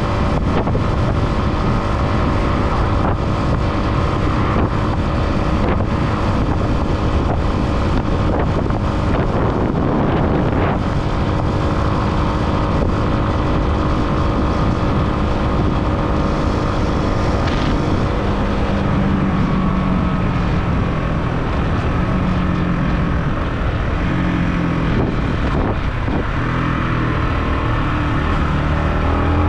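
Yamaha motorcycle engine running while riding, with wind rushing over the microphone. The engine note holds steady, drops lower about two-thirds of the way through, then climbs again near the end.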